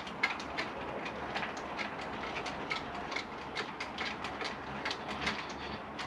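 Manual retractable sun awning being wound out with its crank handle: the winding gear clicks fast and fairly evenly, several clicks a second, as the canopy unrolls.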